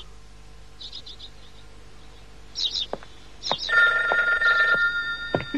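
A telephone ringing in a long, steady ring that starts a little past halfway through. Before it come a few faint high chirps.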